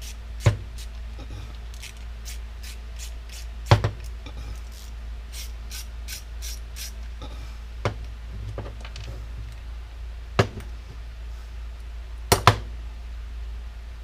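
Hand work on a disassembled power washer: a handful of sharp knocks and clinks of metal parts and tools set down or struck, one close double knock near the end, with faint small ticks and a steady low hum between them.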